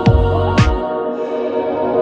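Background music: a drum beat that stops just under a second in, leaving held chords ringing on.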